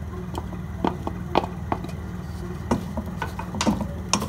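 Wooden spatula stirring freshly added chopped onions in hot oil in a nonstick frying pan, giving irregular light knocks and scrapes against the pan about two or three times a second.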